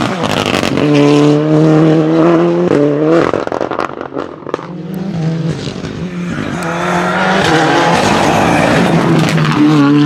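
Fiat 124 Abarth Rally R-GT's 1.8-litre turbocharged four-cylinder engine running at high revs as the rally car drives through the stage, its pitch holding and then stepping up and down several times. There is a noisier spell of tyre and road noise near the end.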